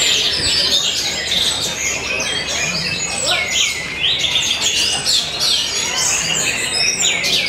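Caged songbirds singing at once in a dense, unbroken run of fast chirps, whistles and quick trills, among them an orange-headed thrush (anis merah).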